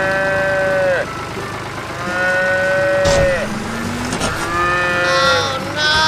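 Cartoon cat meowing: three long drawn-out meows of about a second each, each falling in pitch at the end, with a short knock about three seconds in.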